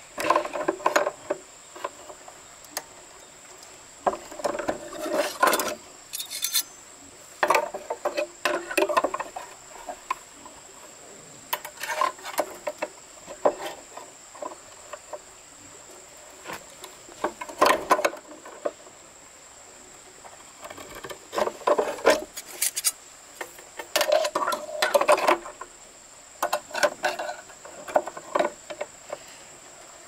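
Clusters of knocks and scrapes every few seconds, over a steady high-pitched insect drone.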